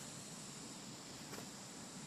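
Steady high-pitched insect drone over quiet forest background, with one faint click a little past halfway.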